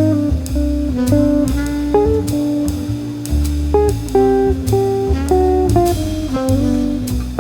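Background music: plucked guitar playing a melody over a steady bass line and a light beat.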